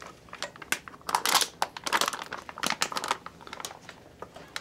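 Clear plastic water bag from an enteral feeding-pump set crinkling and rustling as it is handled, its cap closed and the bag hung on an IV pole, with a string of sharp clicks among the rustles.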